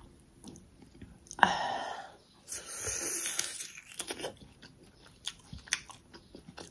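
Close-up eating sounds: biting into and chewing a piece of fried pork. A loud, sharp bite comes about a second and a half in, followed by wet chewing and small mouth clicks.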